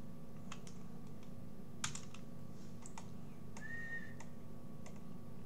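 Keystrokes on a computer keyboard: a scattered handful of separate, irregular clicks over a steady faint hum. A short high tone sounds briefly a little past halfway.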